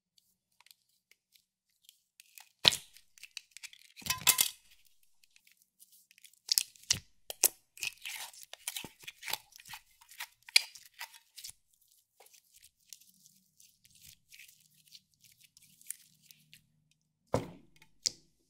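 White slime being pulled by hand out of a small plastic case: a quick run of small sticky pops and squelches. A sharp click about three seconds in, and a thump near the end.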